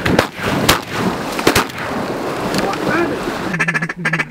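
Volley of shotgun blasts from several guns, about four sharp shots in the first two seconds, two of them close together near the middle.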